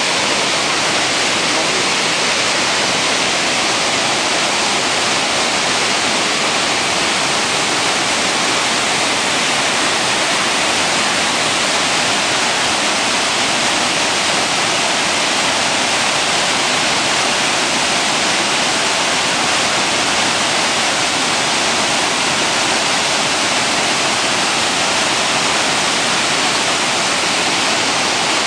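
Heavy water discharge pouring through the open spillway gates of a dam: a loud, steady roar of rushing, churning water that never lets up.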